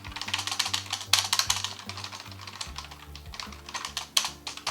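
Rapid typing on a wireless computer keyboard, its keys clicking quickly to test them. The keys are working again after a soap-and-water cleaning of sticky keys.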